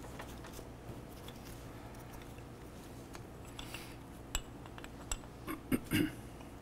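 Brake pad and its spring clicking and clinking against a motorcycle brake caliper as they are worked into place by hand: a few faint ticks, then several sharp clicks in the second half, the last in a quick cluster near the end.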